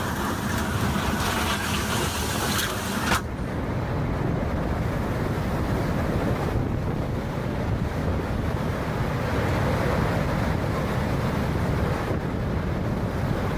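Storm wind buffeting the microphone as a loud, steady rushing noise. A full hiss in the first three seconds cuts off suddenly, leaving a lower rumble.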